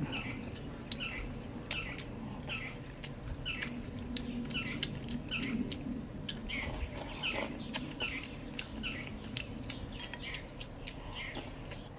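Close chewing and lip-smacking clicks as someone eats, with a small bird chirping over and over in short falling notes, a little more than one a second.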